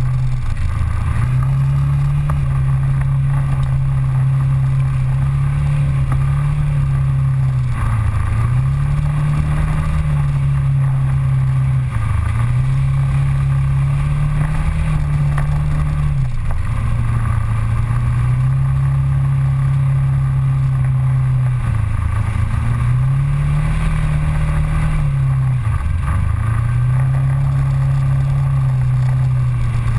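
Polaris Ranger side-by-side UTV engine running steadily under way. Its pitch dips briefly and climbs back several times as the throttle is eased and reapplied.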